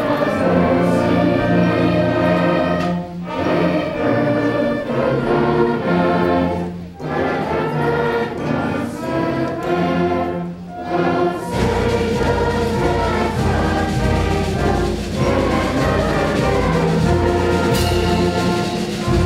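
An elementary school concert band of wind and brass instruments playing sustained chords in phrases with short breaks between them. The low end grows fuller about halfway through.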